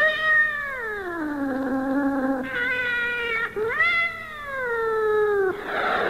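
Cats caterwauling in a fight: long drawn-out yowls, each swooping up and then sliding slowly down in pitch, three in a row, with a short harsh noisy burst near the end.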